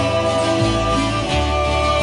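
Live Hawaiian string-band music: acoustic guitars playing over a bass line that steps from note to note.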